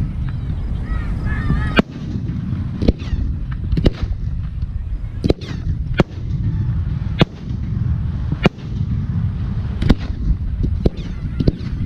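Aerial firework shells bursting: about a dozen sharp, irregularly spaced bangs over a continuous low rumble, with some wavering whistle-like tones in the first two seconds.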